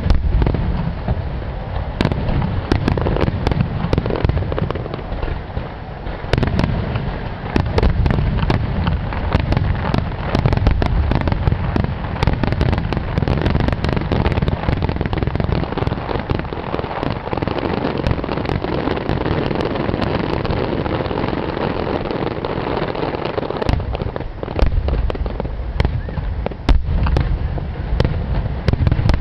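Rapid-fire aerial fireworks (a Japanese starmine barrage), shells bursting in a dense, continuous run of booms and cracks over a heavy low rumble, with a brief lull about six seconds in.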